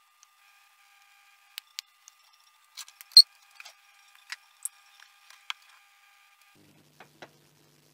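Scattered clicks and taps of hands handling an opened LCD TV's plastic chassis and circuit boards, the sharpest a little past three seconds in. A faint low hum comes in near the end, with two more light clicks.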